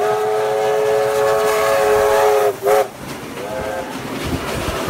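Steam whistle of NSWGR C36-class steam locomotive 3642 passing close by: one long blast that cuts off about two and a half seconds in, then a short toot and a fainter one, over the locomotive's steam and wheel noise.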